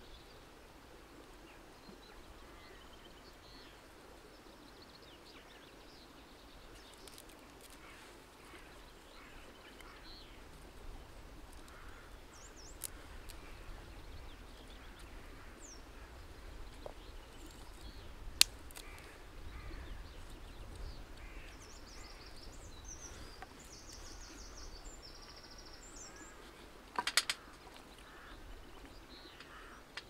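Quiet outdoor ambience with a low wind rumble and birds chirping and calling, while dry twigs are handled as kindling: one sharp snap a little past halfway and a quick cluster of snaps near the end.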